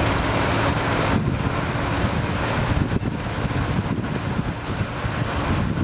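Farm tractor's diesel engine running steadily under load as it pulls a levelling implement through a flooded rice paddy, with wind rushing over the microphone.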